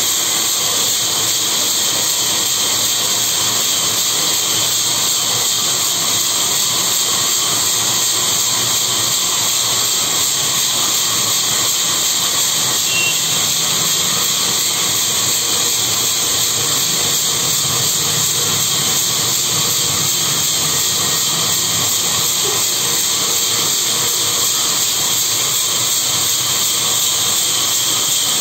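A 42-inch vertical wood-cutting band saw running free with no cut, its big wheels and blade spinning: a steady, unchanging hiss.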